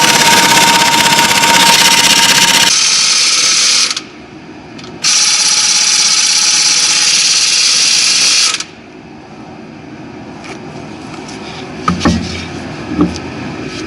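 Power tool run in two bursts of about four seconds each, spinning out the flywheel bolts, followed by a few metallic clicks near the end.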